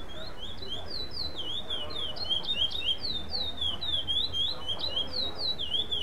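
A male black curió (chestnut-bellied seed-finch) singing its contest song in the non-repeating style: a fast run of clear, whistled notes, each sliding down or up, about three or four a second. It grows louder about two seconds in and stops abruptly at the end.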